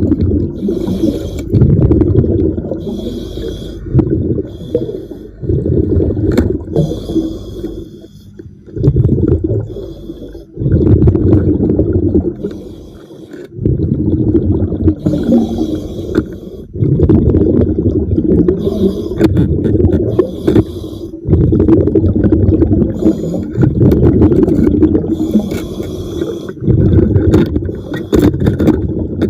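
A diver breathing underwater: repeated rumbling gushes of exhaled bubbles every few seconds, with short hissing breaths drawn in between.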